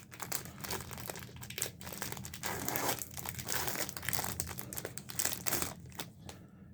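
A foil trading card pack wrapper being torn open and crinkled by hand: irregular crackling rustles that die away near the end.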